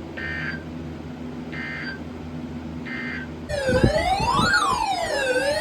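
Three short bursts of EAS digital data tones, each under half a second and about one and a half seconds apart, over a steady low radio hum: the SAME end-of-message code that closes the warning. About three and a half seconds in, a louder siren-like wail begins, sweeping up and down in pitch.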